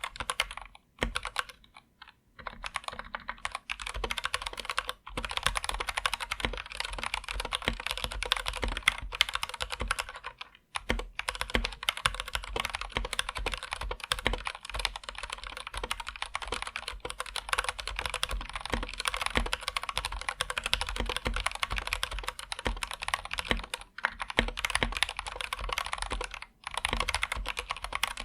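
Continuous typing on an Anne Pro 2 mechanical keyboard with Gateron Red linear switches: a dense patter of keystrokes, broken by a few brief pauses.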